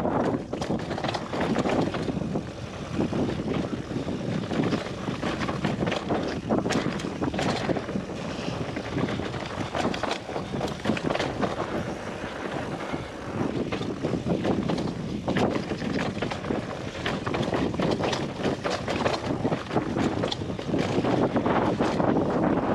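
Wind buffeting the microphone in gusts over the sound of a mountain bike rolling fast on a rocky gravel trail, with frequent sharp clicks and rattles from the tyres and bike on loose stones.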